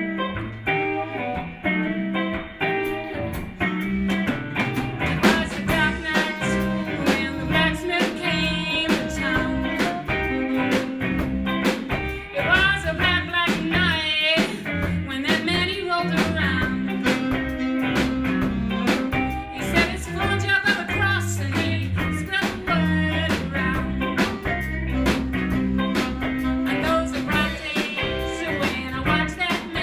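Live blues band playing a song, with guitar to the fore over a steady beat.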